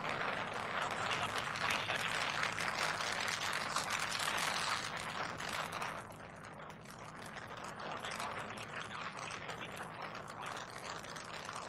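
Crackling rumble of a Delta IV Heavy's three RS-68 rocket engines in the first seconds of ascent, heard from the ground; it drops noticeably in level about six seconds in as the rocket climbs away.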